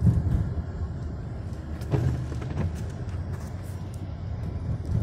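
Car driving on a wet road, heard from inside the cabin: a steady low rumble of engine and tyres, with a few louder bumps, the clearest about two seconds in.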